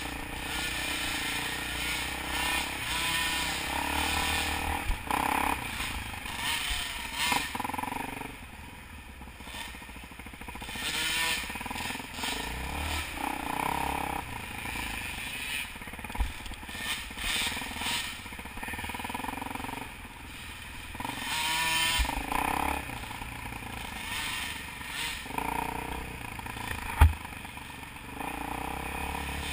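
Dirt bike engine revving up and down as the bike is ridden along a rough dirt trail, heard from a camera mounted on the bike. Several sharp knocks come through, the loudest near the end.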